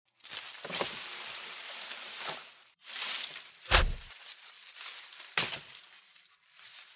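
Dubbed-in action sound effects over a steady hiss: a few sharp cracks, and about halfway through a loud bang with a deep boom, a gunshot effect.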